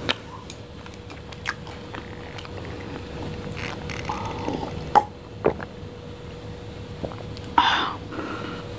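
Close-miked eating and drinking sounds: soft chewing and wet mouth clicks, swallows of a drink, and a few sharp knocks, with a louder short rustling burst near the end. A faint steady hum sits underneath.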